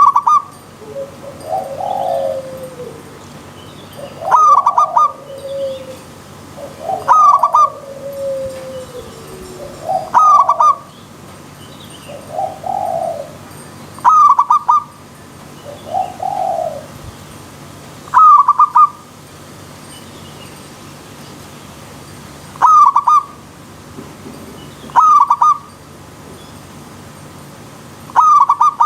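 Zebra dove (perkutut) calling: a short, loud group of staccato cooing notes repeated every two to four seconds, with softer, lower drawn-out coos between them in the first half. A steady faint rush of running water lies underneath.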